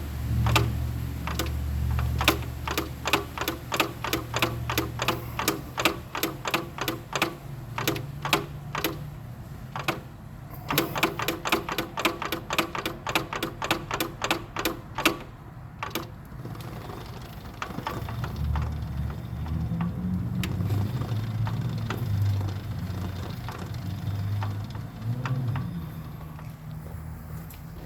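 Remanufactured CVT in a Nissan Rogue making a rhythmic clunking, about three to five knocks a second over a low drivetrain hum, thinning out to a steady low hum with only scattered knocks after about 16 seconds. The owner puts the clunk down to a failing internal bearing in the transmission, under 2,000 miles after it was fitted.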